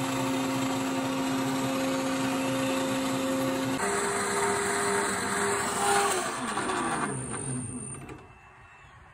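Metal lathe running while a tool cuts a steel rod, a steady motor whine over a hiss of cutting noise. The whine jumps to a different pitch about four seconds in. Near the end it falls in pitch and fades as the lathe winds down.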